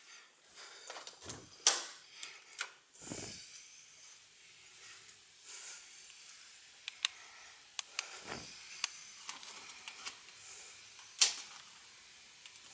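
Footsteps and handheld-camera handling noise: scattered sharp clicks and a few dull thumps, with no speech.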